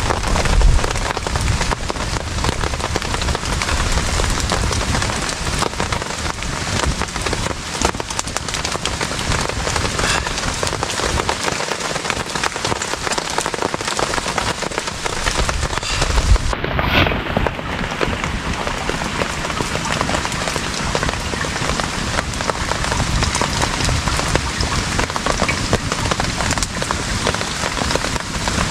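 Loud, steady rain falling on a tarp shelter.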